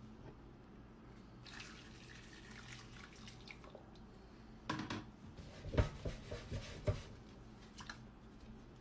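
Boiling water poured from a pot onto raw chicken pieces in a bowl, a steady splashing pour, followed about five seconds in by a run of knocks and sloshes as the pot is handled and the chicken is moved in the hot water.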